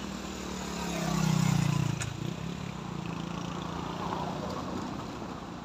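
A vehicle engine running under load. It swells louder about a second in, then settles to a steady drone.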